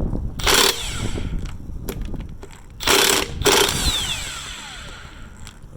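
Cordless impact wrench hammering in short bursts on a connecting-rod cap fastener, trying to break it loose. After the last burst, about four seconds in, its motor whines down.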